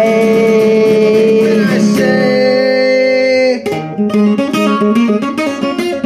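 Song accompaniment on acoustic guitar: a long held note over the guitar cuts off about three and a half seconds in, then plucked guitar notes carry on.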